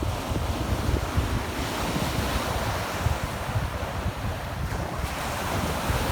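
Sea surf washing onto a beach, a steady hiss, with wind buffeting the microphone in low gusts.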